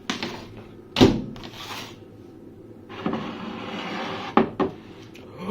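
Kitchen handling noises: a sharp knock about a second in and a short scrape after it, a steady rustling stretch in the middle, then two quick knocks near the end, like dishes and cupboards being handled.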